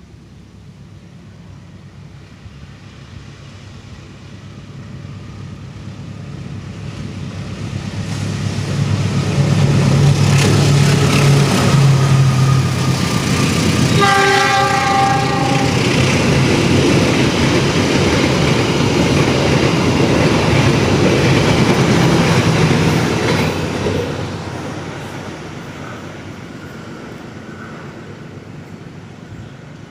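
A passenger train hauled by a CC206 diesel-electric locomotive approaches and passes, its engine and wheels growing louder over several seconds, staying loud for about fifteen seconds, then fading away. About halfway through there is a short blast of the locomotive's horn.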